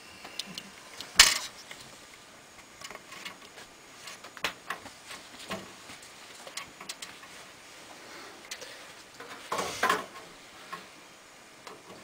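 Screwdriver and screws clicking and tapping against a metal computer case as a motherboard is screwed into it: scattered small irregular clicks, the sharpest about a second in and a cluster near ten seconds.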